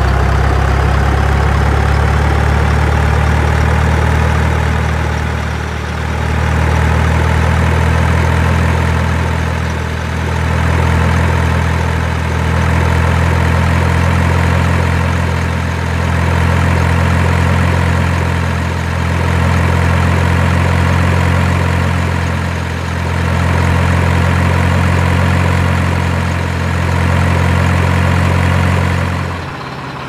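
Heavy truck engine idling steadily, swelling and dipping slightly every three to four seconds as if repeated; it drops out briefly near the end.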